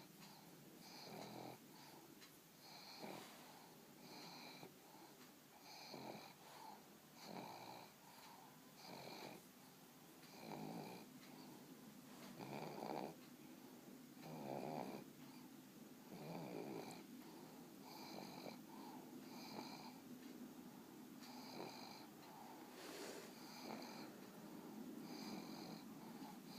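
Pug snoring softly in a steady rhythm, about one snore every one and a half to two seconds.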